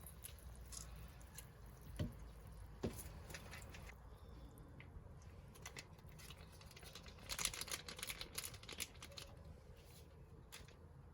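Quiet handling noises: two light knocks about two and three seconds in, then a brief flurry of small clicks and taps past the middle.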